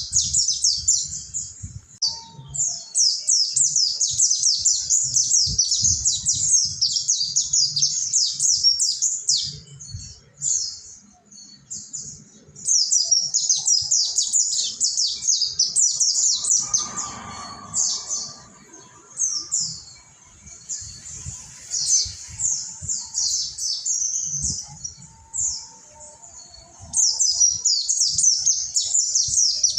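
A group of mountain white-eyes (pleci monty) singing together: long runs of rapid, high, sweeping twittering notes, broken by two short lulls.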